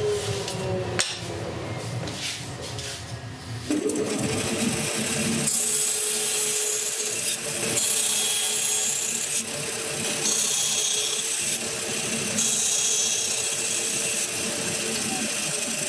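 A table saw winding down in the first second. Then, from about four seconds in, a band saw runs steadily, cutting through a thin plywood panel, and stops near the end.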